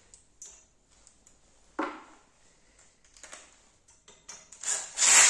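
Light metallic clinks and a sharp knock as a Metabo cordless drill's hex bit is fitted onto the bolt head of a steel frame-bench clamp, then a short, louder rasping burst about five seconds in.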